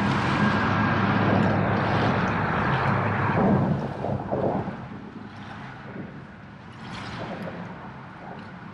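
Boat's outboard engine running with a steady low hum under a rush of wind and water, easing off about four seconds in and leaving quieter wind and water noise.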